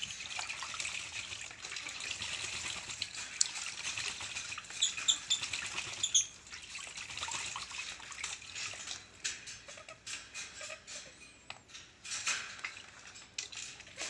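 Purple swamphens splashing while bathing in a plastic basin of water, a rough, busy splashing that is heaviest through the first half and thins to scattered splashes and drips later.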